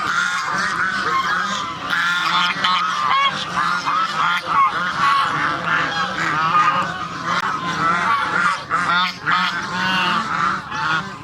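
A flock of domestic geese honking, many short calls overlapping without a break.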